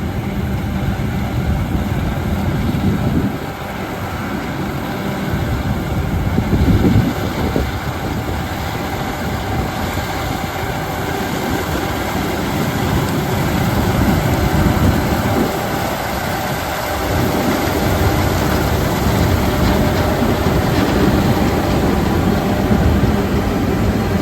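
John Deere X9 1100 combine harvester running steadily while harvesting wheat: engine and threshing machinery.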